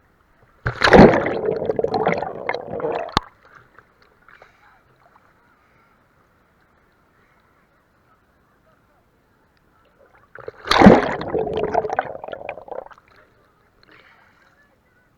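Sea water splashing and sloshing as a swimmer plunges under, twice, about ten seconds apart; each splash starts suddenly and dies away over a couple of seconds.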